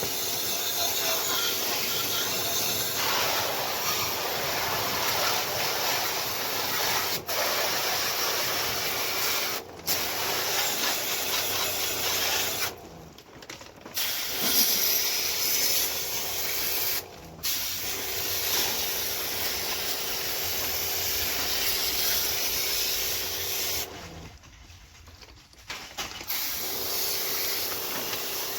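High-pressure spray jet hissing steadily as it cleans an air conditioner's indoor unit, with a faint steady hum underneath. The spray stops briefly three times, the last time for about two seconds.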